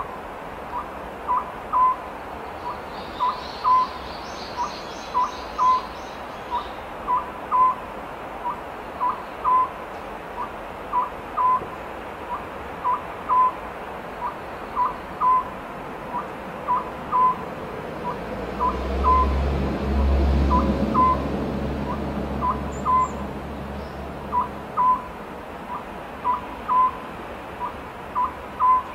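Oriental scops owl calling: short hooted notes in a phrase repeated about every two seconds. A low rumble swells and fades around the middle, and faint high chirps come between about three and six seconds in.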